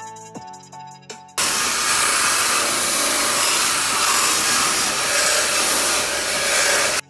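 Background music for about a second and a half, then a sudden cut to a handheld rotary polisher with a red abrasive scuff pad, running steadily against a pickup's painted tailgate: a loud, even hiss-like whirr. It is scuffing the paint as prep for a spray-on bed liner. The tool noise cuts off abruptly near the end, where the music comes back.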